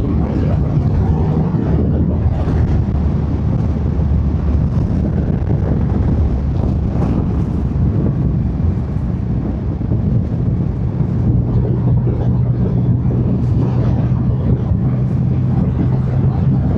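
Triumph Rocket 3 R Storm's 2.5-litre inline three-cylinder engine on its stock exhaust, running steadily at road speed under wind rush. The engine note shifts about eleven seconds in.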